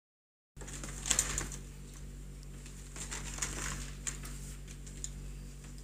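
Card file folders handled on a desk: paper rustling with light clicks and taps, the sharpest about a second in, over a steady low hum. The sound starts abruptly about half a second in.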